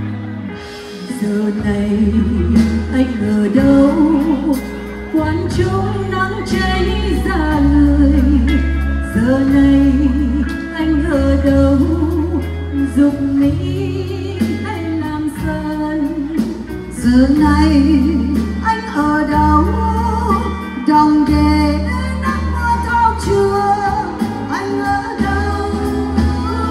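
Female singing with vibrato, carrying a slow ballad melody over a live band with a steady bass line and a drum kit.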